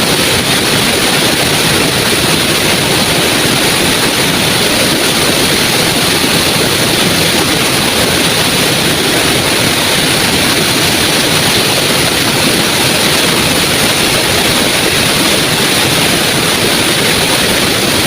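Small waterfall: water falling steadily with a loud, even hiss.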